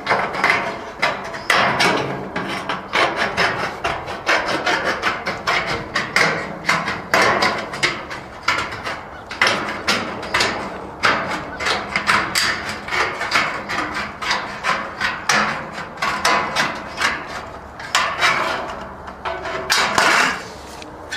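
Straight tin snips cutting through a thin ribbed sheet-metal skirting panel: a steady run of sharp crunching snips, several a second, with the sheet rattling and rasping as it is pulled up and torn along the cut.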